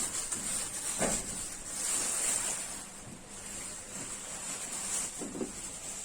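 Plastic wrapping rustling and crinkling as it is pulled off a new amplifier, with a few louder crackles.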